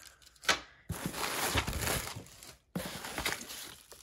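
Plastic packing (bubble wrap and an air pillow) crinkling and rustling as it is handled and lifted out of a cardboard box, with a sharp tap about half a second in and a brief break near the end.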